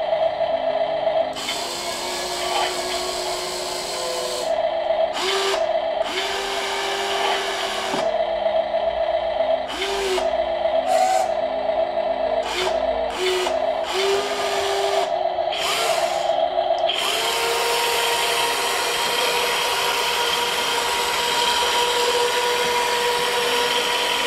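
Brushed electric motors and metal gearing of a 1:14 MODSTER Digger RC excavator whining as the boom, bucket and turret are worked. The whine starts and stops in short spurts with small pitch slides as the controls are moved, then runs steadily for the last several seconds.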